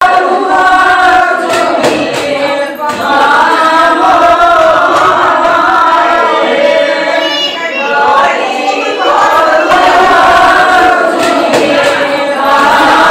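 A group of voices singing a Hindu devotional chant.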